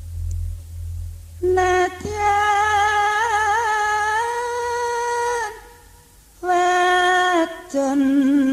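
Banyumasan calung music: a female voice sings long held notes with a wavering vibrato in three phrases. A deep low tone sounds under the opening and fades over the first two seconds.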